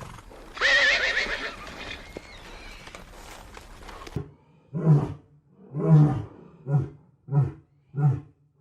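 A large animal calling: one loud, high, wavering call lasting about a second and a half, then a run of six short, low calls about two-thirds of a second apart.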